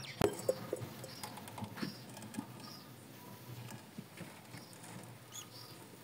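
Faint scratching and rustling of budgerigars moving about on the nest-box floor, a run of small irregular ticks, with a few faint short high chirps.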